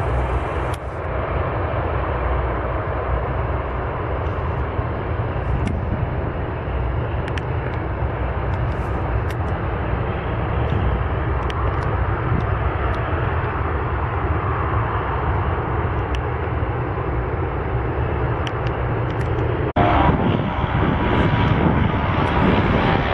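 Jet engines of a Boeing 737 airliner running as it moves along the runway: a steady, loud roar. About twenty seconds in it cuts off abruptly into a different steady noise.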